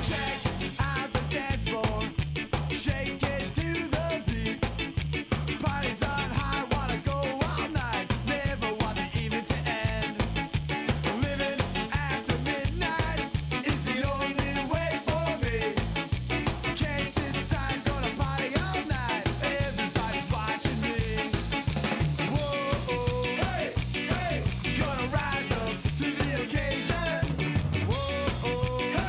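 Upbeat background music with a fast, steady beat, ska-like in style, with some singing.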